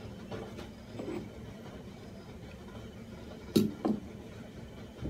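Low steady kitchen background noise from the stove while an empty wok heats, with two short sharp clicks in quick succession about three and a half seconds in.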